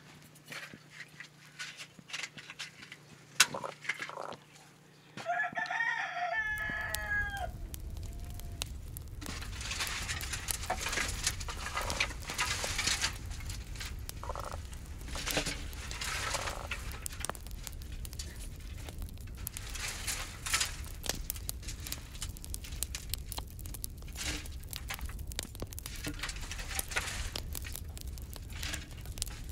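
A rooster crows once about five seconds in. Then, over a steady low rumble, dry brushwood twigs rustle, snap and crackle as they are pushed into a clay tandoor oven set in the floor.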